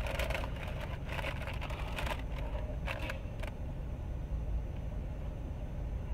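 Steady low hum of a car's running engine heard from inside the cabin, with a few brief rustles and clicks in the first few seconds.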